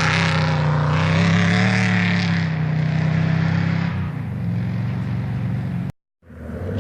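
Off-road race vehicle engine running at a steady pitch, loudest for the first four seconds and then somewhat quieter. Near the end the sound cuts out completely for a moment and an engine is heard again after it.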